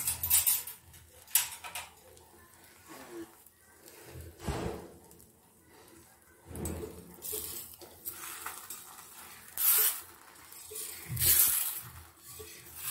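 Intermittent clinks and scrapes of metal kitchen utensils, about seven short sharp bursts a second or two apart over a low background.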